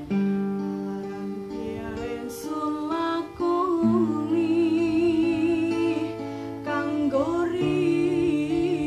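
A woman singing over an acoustic guitar she accompanies herself on, the guitar's chord changing about every four seconds. Her voice joins a few seconds in, with a wavering vibrato on held notes.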